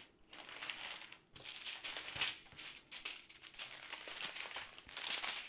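Crinkling of small sealed plastic bags of diamond painting drills as they are handled and shifted, in irregular bursts.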